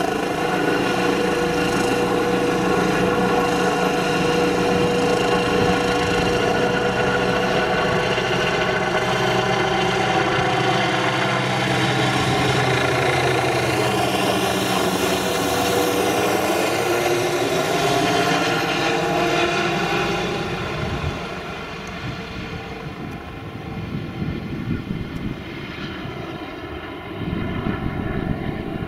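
Air rescue helicopter passing low overhead just after takeoff: steady rotor and turbine sound, loudest as it goes over, then fading after about twenty seconds as it flies off.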